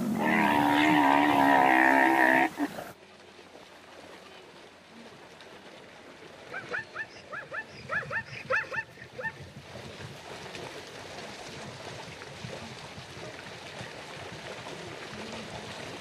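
A zebra's long, wavering call with a bark-like edge, loud for the first two and a half seconds. A few seconds later comes a run of about a dozen short, high, rising calls, over a faint, even background hiss.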